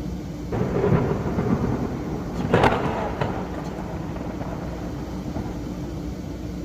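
Water splashing in a deep rain puddle: a rush of splashing starting about half a second in, then a sharper, louder splash about two and a half seconds in with a smaller one just after.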